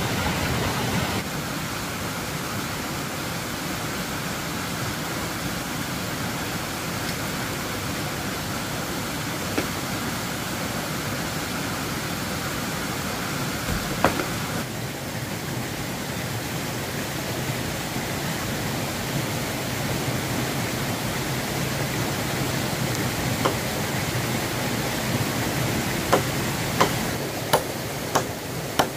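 Steady rushing noise with no clear pattern, a single sharp knock about halfway through and several sharp knocks close together near the end.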